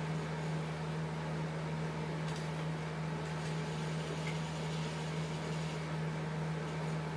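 Aquarium filter pump humming steadily at a low pitch over a soft even hiss.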